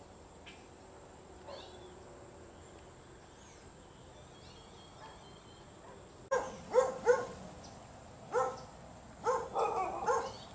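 Dogs barking: after a quiet start, a run of loud barks begins about six seconds in and comes in short groups of one to three until the end.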